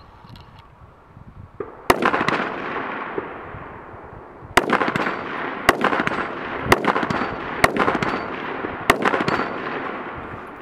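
Six rifle shots fired from the prone position, each followed by a long echo rolling back across the range: one shot about two seconds in, then, after a pause, five more about a second apart.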